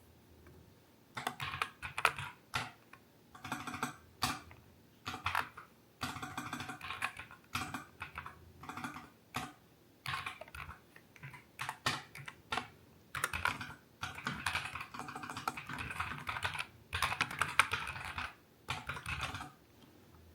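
Typing on a Nuphy Air 60 v2 low-profile mechanical keyboard fitted with Aloe switches. It starts about a second in and runs as bursts of rapid keystrokes broken by short pauses.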